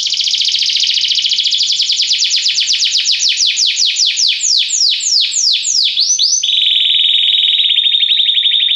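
Domestic canary singing: a fast trill of repeated falling notes that slows gradually, then about six and a half seconds in switches to a much faster, steady buzzing trill at a lower pitch.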